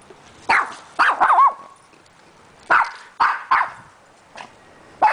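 A small dog barking in high, sharp yaps. There are about six barks in two quick clusters, some with a wavering, whiny pitch.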